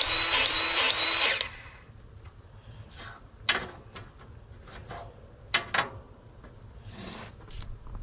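A small power tool's motor running with a regular pulsing, about three pulses a second, that cuts off about a second and a half in. After that come a few light clicks and knocks of handled metal parts.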